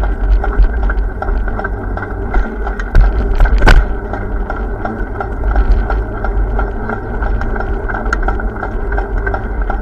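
Steady vehicle running noise with a loud low rumble, typical of wind on the microphone while riding, and a light ticking about three times a second.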